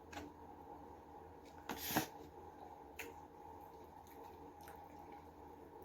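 Faint eating sounds of a person chewing barbecue chicken and fries: a short chewing or mouth noise about two seconds in, the loudest moment, and a few soft clicks around it.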